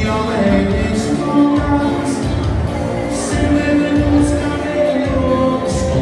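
A live dance band playing with a singer, a steady beat about twice a second and a few cymbal hits.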